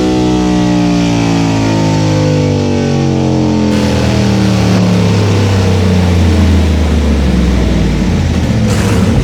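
Race car engine with its revs falling steadily over several seconds as it comes off the throttle, then settling into a low, steady drone.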